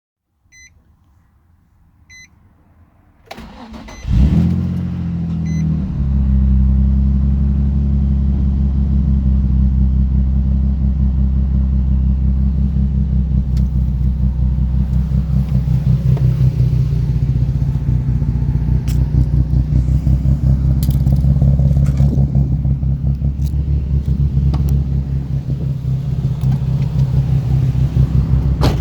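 Two short electronic beeps, then a 2004 Nissan 350Z's 3.5-litre V6 cranking about three seconds in, catching with a brief flare in revs and settling into an idle that pulses unevenly: the rough idle the owner is trying to diagnose, which came on together with a flashing AT check light.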